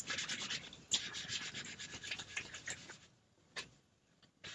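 A hand scrubbing a Chalk Couture silkscreen transfer against a cleaning pad to clean the chalk paste off it: rapid scratchy back-and-forth rubbing strokes. They stop about three seconds in and start again near the end.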